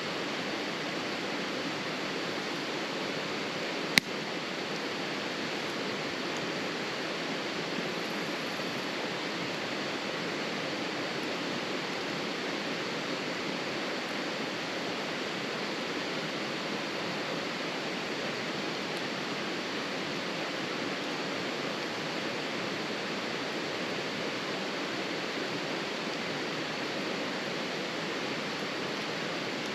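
A steady rushing hiss, with a single sharp pop about four seconds in, typical of burning firewood.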